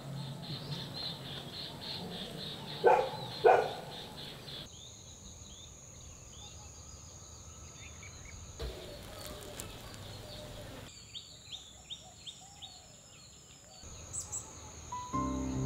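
Outdoor village nature ambience spliced from several pieces: a fast pulsing high buzz of insects, then a steady high insect drone with scattered bird chirps, and two loud short bird calls about three seconds in. Music comes in near the end.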